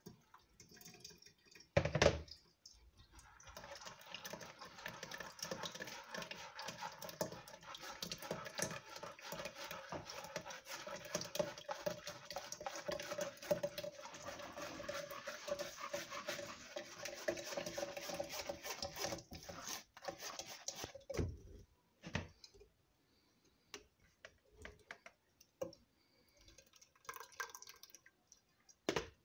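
Fresh fruit juice pouring and trickling into a container in a steady stream for about eighteen seconds, after a single knock about two seconds in.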